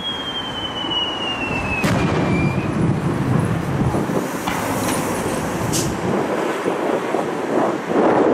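Fireworks shells bursting with sharp bangs, about two seconds in and again near six seconds, over a steady low rumble. A thin high whistle falls slowly in pitch through the first two to three seconds.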